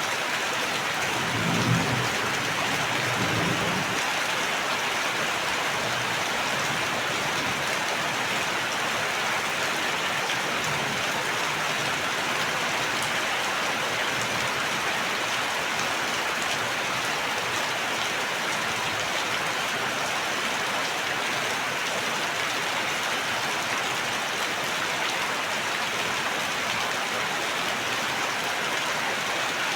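Steady rain falling, an even hiss of drops on surfaces, with a brief low rumble about two seconds in.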